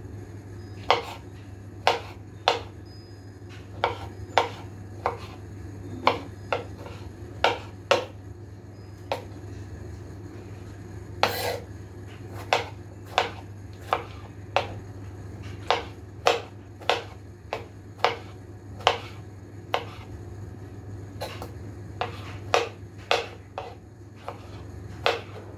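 Kitchen knife dicing tomatoes on a cutting board: sharp knocks of the blade on the board, roughly one a second, with one longer, louder clatter about halfway through, over a steady low hum.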